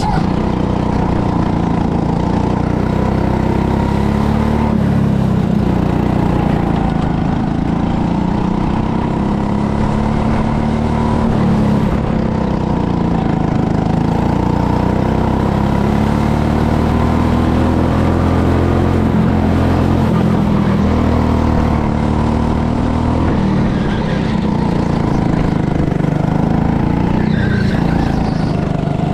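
Go-kart engine running close beneath the driver's seat, its pitch rising and falling again and again as the throttle opens and eases around the track.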